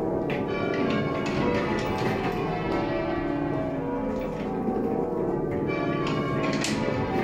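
A ring of church bells rung full-circle by a band of ringers, half-muffled as a sign of mourning. Strike follows strike steadily, the tones of several bells overlapping and ringing on.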